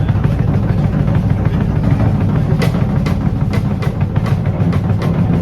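A band of electric guitar, bass and drum kit playing together, with a heavy low end from bass and kick drum. Cymbal hits come in repeatedly from about halfway through.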